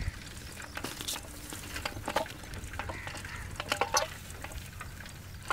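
Bicycles riding over a rough dirt field track: an irregular crackle of small clicks and rattles from tyres and frames over bumps, with a faint low rumble.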